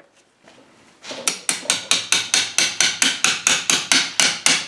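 Hammer striking a punch in a quick steady series of metallic taps, about five a second, starting about a second in: driving the lock collar tight on a Honda EP3 electric power steering rack.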